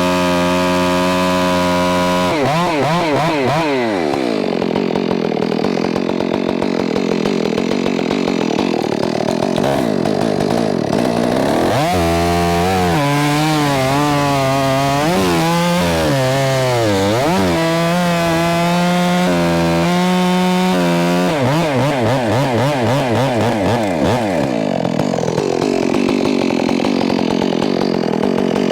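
STIHL MS461 two-stroke chainsaw with a bark box muffler, cutting through logs. It runs wide open, then drops in pitch and turns rough as the chain bites into the wood. About halfway it revs freer with a wavering pitch, then bogs back down into the cut.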